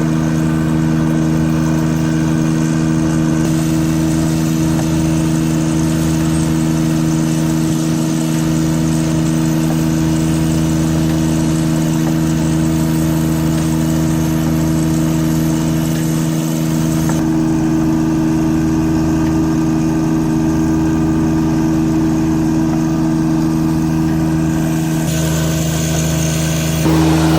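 Engine running steadily at an even speed, with a slight change in tone about 17 seconds in.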